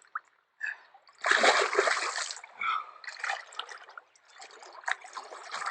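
A carp splashing in the water as it is released. There is one loud splash about a second in, followed by a few smaller splashes.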